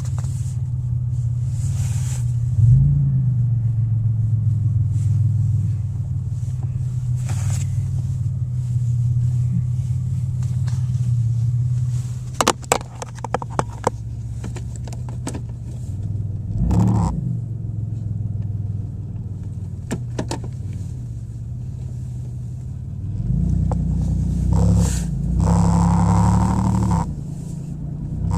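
2001 Pontiac Grand Am engine running with a steady low drone, revved up briefly a few times, the last rise held longer near the end. This is the loud motor noise the owner says comes with vibration and gets worse on acceleration. A few sharp clicks come about halfway through.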